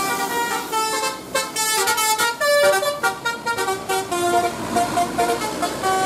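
Telolet "basuri" musical horn on a tour bus playing a quick tune of short notes that step up and down in pitch several times a second.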